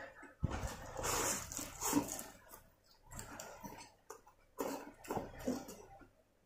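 Close-up chewing of a mouthful of leafy salad greens and noodles, with uneven crunching and wet mouth sounds that come and go in short bursts.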